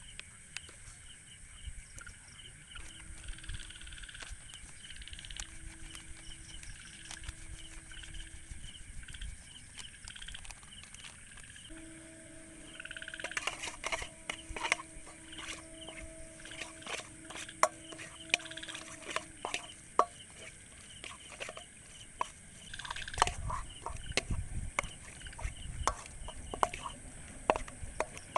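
Metal spoon stirring and scraping a thick spice marinade in a stainless steel bowl, with sharp clinks against the steel from about halfway in. Crickets and other insects chirp steadily throughout.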